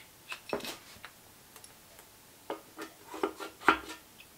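Light metallic clicks and taps from a feeler gauge set being handled, its steel blades knocking together as a piston ring's end gap is checked in the cylinder. There are about half a dozen separate ticks, scattered, a couple with a short ring.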